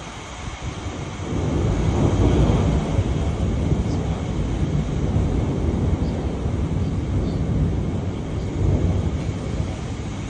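Wind gusting against the microphone in a rainstorm, a low rumbling noise that swells about a second in and stays loud.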